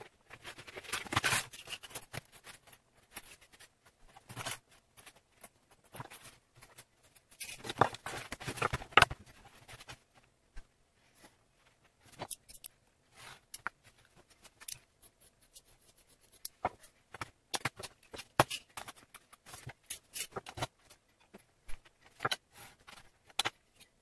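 A stiff leather hide rustling as it is handled and spread flat on a cutting board, in two busier stretches, then scattered light clicks and taps as a metal square ruler and steel weights are set on it.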